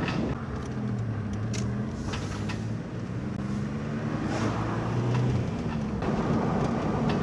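Van engine running steadily while driving along the road, with tyre and road noise, heard from inside the cab. The engine note drifts a little in pitch.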